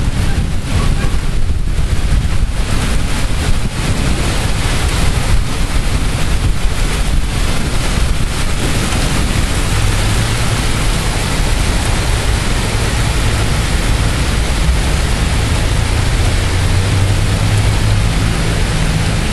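Heavy thunderstorm rain and strong gusting wind, the gusts buffeting the microphone with low rumbling. The wind surges unevenly for the first half and then settles into a steadier downpour hiss.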